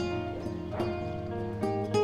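Slow background score of plucked guitar, single notes picked one after another over a held low note.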